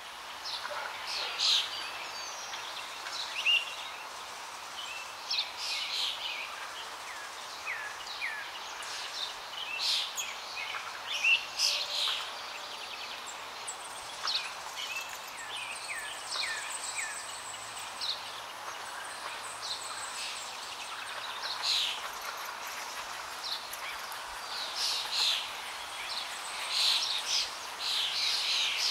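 Birds chirping and calling: many short, high chirps and quick sweeping notes, scattered throughout over a steady background hiss.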